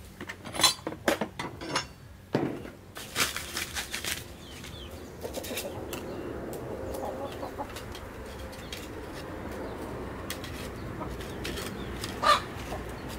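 Clicks and clatter of a cordless angle grinder and its hard plastic case being handled during the first few seconds, then chickens clucking, with one louder call about twelve seconds in.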